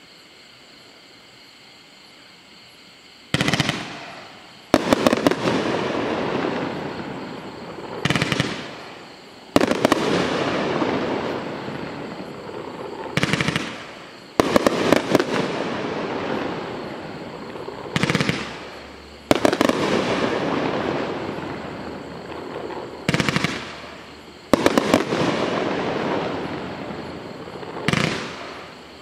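A 36-shot fan cake firework with gold-tail-to-nishiki strobe stars firing. About three seconds in the first sharp shots go off. After that, shots come mostly in pairs about every five seconds, and each pair is followed by a dense crackle that fades over a few seconds.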